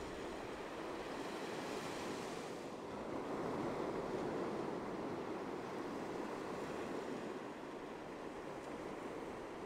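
Ocean surf washing onto a beach: a steady rushing of waves, with a brief rise in hiss about two seconds in as a wave breaks, then a louder swell of surf.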